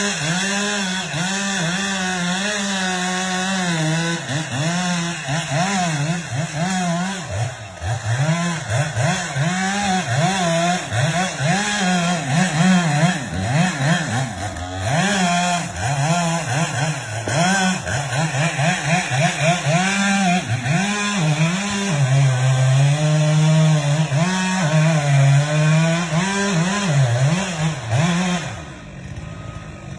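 Chainsaw running, its engine revving up and down many times. It eases off briefly near the end.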